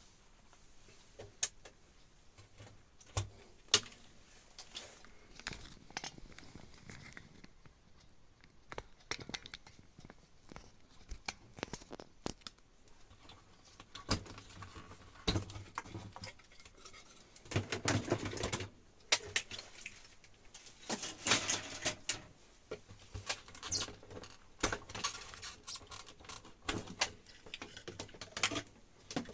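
Irregular clicks, taps and scraping of small hard objects being handled, denser and louder in the second half.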